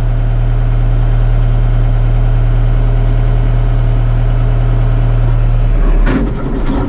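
Case IH 75C tractor's four-cylinder diesel engine running steadily, heard from inside the cab. Its note changes near the end, with a short clunk.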